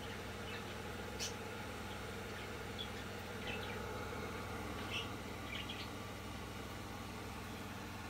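Steady hum of an aquarium air pump driving streams of fine bubbles through the tank, with a few short high chirps scattered over it, the clearest about a second in and about five seconds in.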